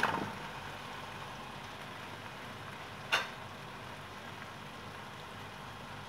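Yogurt-marinated chicken dropping from a bowl into a hot pan of tomato-onion masala with a soft splat, then a steady sizzle from the pan. A single sharp tap about three seconds in.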